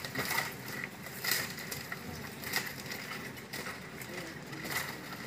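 Scattered soft crackles and rustles, like dry plant matter being crushed or handled, over a faint steady high whine.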